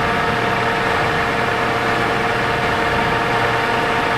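Mori Seiki MS850G engine lathe running under power, a steady even hum with a couple of constant tones.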